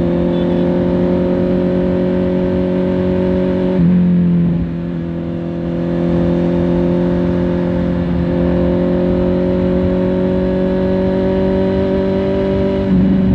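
Honda CBR650R's inline-four engine pulling steadily, its note slowly climbing; about four seconds in it briefly gets louder, eases off, then climbs again, with another surge near the end.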